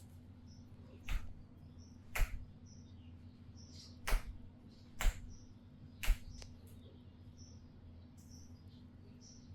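Five sharp slaps of a masseur's hands during a head massage, about a second apart, each with a dull thump under the crack, then the hands go quiet for the last few seconds. Faint high chirps sound in the background.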